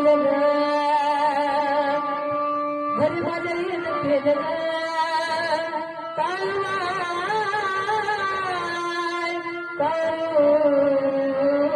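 A devotional song with a singer holding long, wavering notes over steady instrumental accompaniment, with a new phrase starting about every three to four seconds.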